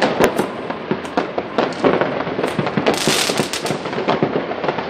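Many fireworks and firecrackers going off at once: a continuous, loud rattle of overlapping bangs and crackles, busiest about three seconds in.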